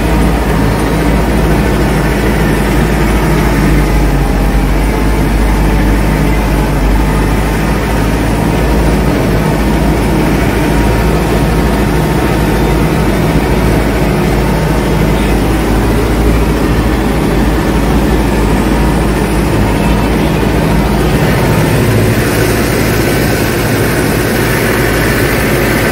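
McCormick C100 Max tractor's diesel engine running steadily under load while pulling a five-bottom reversible plough, heard from the driver's seat. The note shifts slightly near the end.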